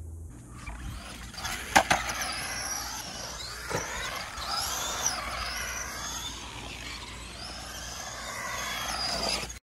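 Traxxas Bandit RC buggy driving on concrete: the electric motor and gearing whine, rising and falling in pitch as the throttle is worked, over tyre noise, with a couple of sharp knocks about two seconds in. The battery is nearly spent and gives the motor little power. The sound cuts off suddenly near the end.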